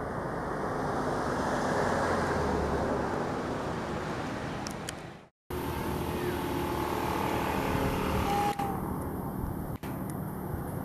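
Steady outdoor background noise that swells and fades, cutting out completely for a moment about five seconds in, with a faint short whine near the end.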